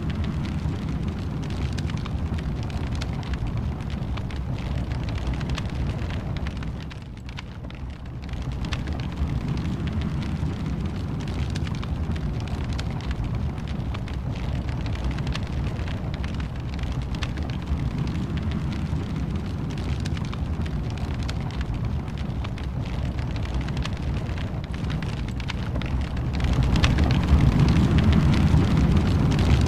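Wood fire in a fireplace crackling, with many small snaps over a steady low rumble of flames. It dips briefly a few seconds in and grows louder near the end.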